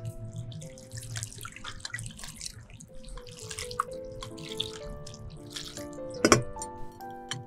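Water pouring from a glass jug over grated potato in a wire-mesh strainer, splashing through into a glass bowl below. A single sharp click comes a little after six seconds in.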